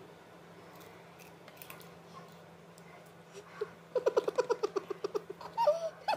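Toddler babbling: a rapid string of short repeated syllables starts about four seconds in, followed near the end by a few higher sounds that slide up and down in pitch.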